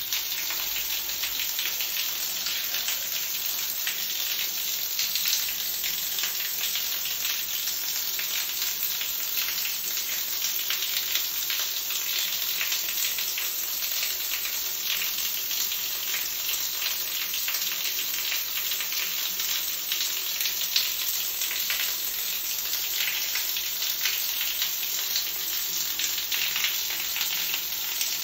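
Water spattering steadily onto a wet tiled floor, a continuous crackly hiss full of tiny drip clicks, like a shower running.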